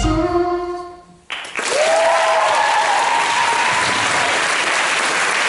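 Backing music fades out, then about a second in an audience breaks into applause, with a cheer over it.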